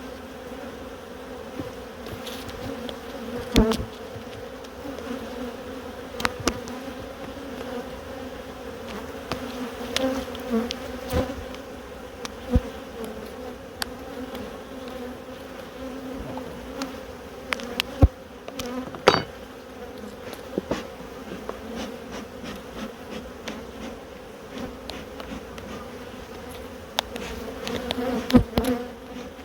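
Many honeybees buzzing around the open hive in a steady hum, with scattered sharp clicks and knocks from handling the hive.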